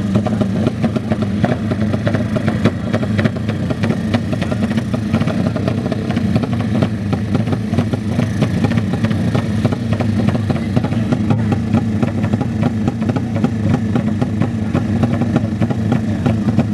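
Motorcycle engines running loudly and steadily, with some revving.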